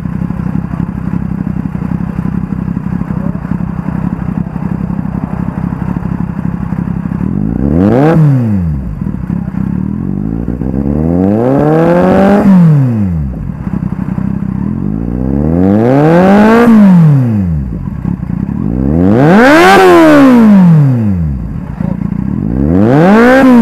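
Kawasaki Z800's inline-four engine idling through an SC Project GP M2 exhaust, then revved five times with the bike standing still, each rev climbing and dropping back to idle. The first rev is a short blip and the later ones are held longer, about every four seconds.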